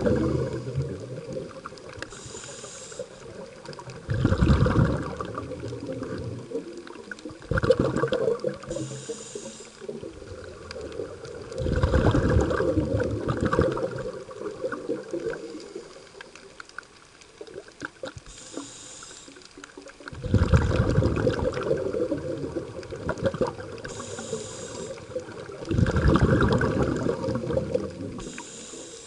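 Scuba diver breathing through a regulator, heard underwater: a short, high hiss of each inhalation through the demand valve, then a longer rumbling burst of exhaled bubbles. The cycle repeats every few seconds, with six bubble bursts and five inhalations.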